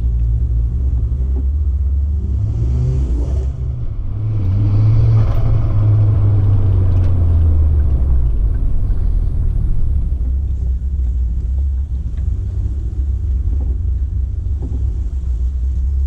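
Turbocharged 2.5-litre five-cylinder engine of a tuned Ford Focus ST Mk2.5 running under way with a deep rumble, getting louder about four seconds in as the car pulls hard, then easing back.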